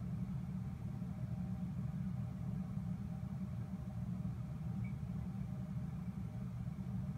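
Steady low hum of aquarium equipment running, with a faint higher tone held above it.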